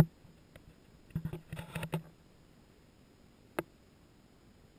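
A few light clicks and soft knocks in a quiet room: a sharp click at the start, a short cluster of them a second or two in, and one more sharp click later.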